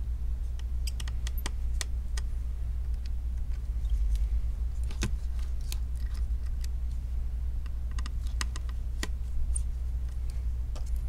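Light, irregular clicks and taps of a precision screwdriver and a small metal bracket against the open iPhone's frame as the bracket is worked into place, over a steady low hum.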